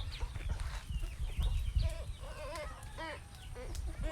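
Short animal calls, each rising and falling in pitch, repeating several in a row in the second half, over a low rumble.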